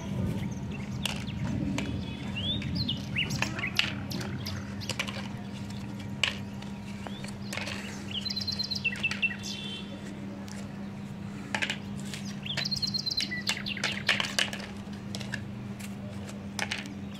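Small birds chirping repeatedly in short twittering phrases, over a steady low hum. Light sharp clicks of plastic toy plates being set down on concrete come at intervals.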